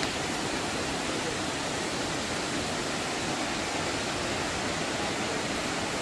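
Steady rushing roar of the Tumpak Sewu waterfall carried up from the gorge below, an even wash of falling water that holds the same level throughout.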